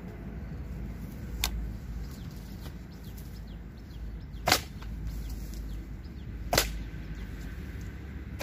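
Hand hoe chopping into the ground to dig up a shrub: a lighter strike about a second and a half in, then two louder sharp strikes about two seconds apart.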